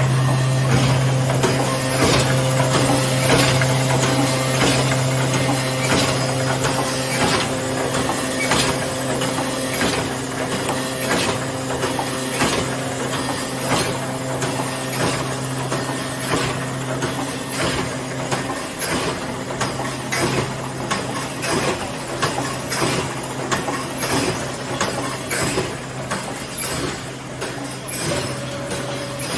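Automatic brick force wire welding machine running: a steady low hum with repeated sharp metallic clacks from its mechanism, roughly two a second.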